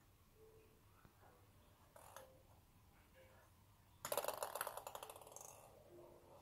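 A ping pong ball knocked by a cat's paw, clattering on a hard floor in a quick run of clicks about four seconds in that trails off over a second or two. A soft single tap comes a couple of seconds earlier.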